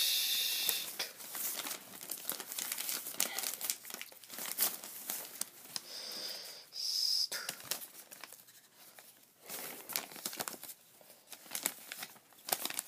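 Lined notebook paper crinkling and rustling as a hand-held paper cutout is moved about, in irregular handling noises with a few brief high-pitched squeaks near the start and about halfway through.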